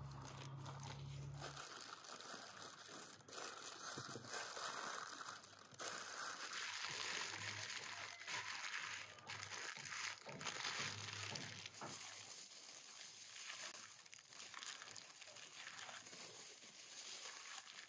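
Baking paper crinkling and rustling in irregular handfuls as it is folded and pressed around a whole seasoned turkey.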